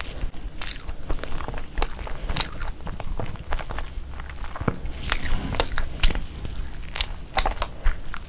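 A person chewing a mouthful of gravy-dipped chicken wrap: many sharp, wet mouth smacks and clicks in quick, uneven succession.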